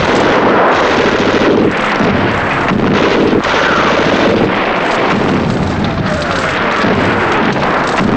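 Battle noise: dense rifle and machine-gun fire mixed with shell explosions, a continuous loud din with many sharp shots through it.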